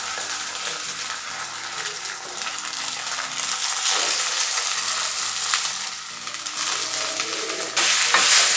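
Crumbled steamed colocasia-leaf (patrode) mixture sizzling in hot coconut oil and melted jaggery in an aluminium pan. The sizzling gets suddenly louder near the end as a wooden spatula stirs the mixture.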